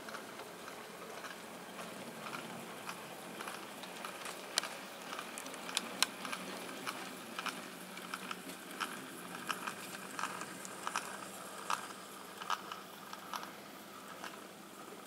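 OO gauge model train of coaches and goods wagons running past, its wheels clicking irregularly over the rail joints and pointwork, over a steady low hum.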